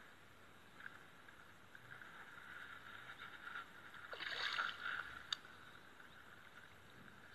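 A hooked chub splashing in shallow water at the bank, with a burst of splashing about four seconds in and a sharp click just after.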